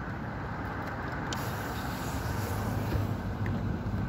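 Steady low rumble of road vehicles: engine and traffic noise with no sharp events.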